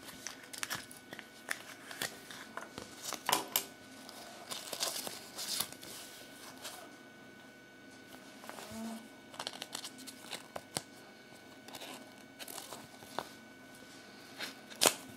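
Small plastic toy parts and a plastic Kinder Surprise capsule being handled, with a paper leaflet crinkling: irregular clicks, taps and rustles.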